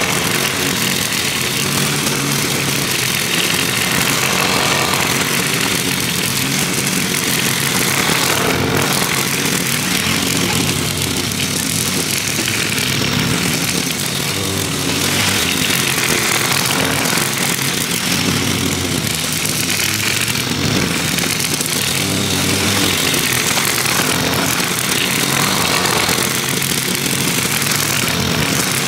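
Gas walk-behind lawn mower engine running steadily while cutting grass, a little quieter about halfway through as it moves away across the yard, then louder again as it comes back close near the end.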